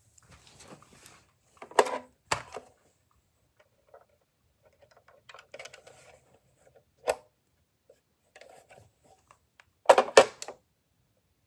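Hard plastic of a Uniden EXP7900 cordless phone base and handset being handled: rubbing and scraping, two sharp clacks about 2 s in, one near 7 s, and a loud double clack near the end as the handset is pressed down into its cradle, which resets the security code.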